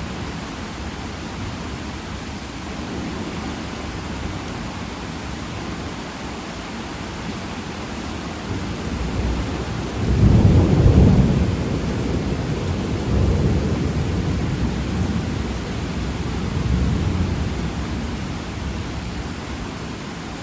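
Steady heavy rain hissing, with a roll of thunder that builds about nine seconds in, peaks loudest a second or two later and rumbles on in weaker swells before fading near the end.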